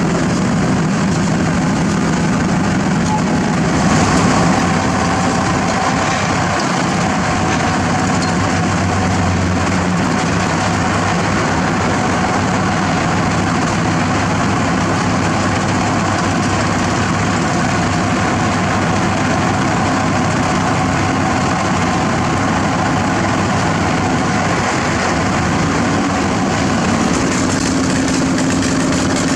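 Heavy diesel engine running steadily at idle, a constant low drone that swells briefly about four seconds in.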